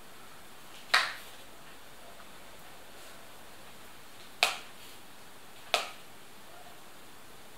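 Three sharp clicking taps, one about a second in and two more close together past the middle, over a steady background hiss.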